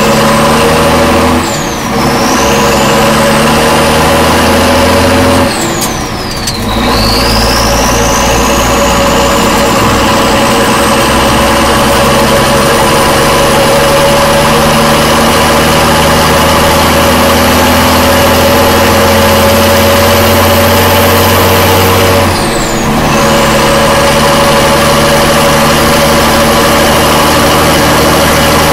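1967 M35A2 cargo truck's turbocharged multifuel engine pulling through the gears, heard from inside the cab, with a high whine that climbs as the truck gathers speed. Three times, at about two seconds in, about six seconds in and again about three quarters of the way through, the engine sound dips briefly and the whine drops away: gear shifts.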